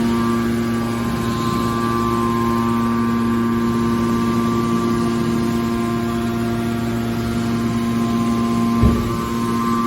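Hydraulic scrap metal baler running with a steady, even hum from its pump and motor. One short knock sounds near the end.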